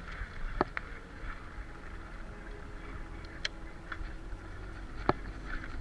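Wind rumbling on the microphone and the rolling noise of a bicycle on a rough forest track. A few sharp clicks and knocks from the bike sound over it, two close together about half a second in and more later.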